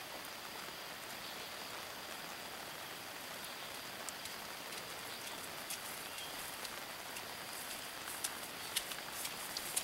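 Light rain falling on a pond and the grass around it: a faint, even patter, with a few soft ticks near the end.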